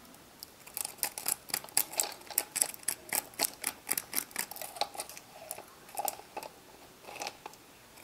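Pencil scratching on a rough plastered wall in many short strokes, a few a second, as tick marks are drawn against a tape measure.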